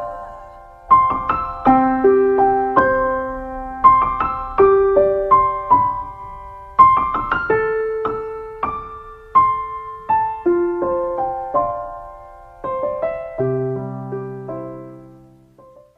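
Slow solo piano playing the closing bars of a ballad: single notes and chords, each struck and left to ring, ending on a low chord that fades out near the end.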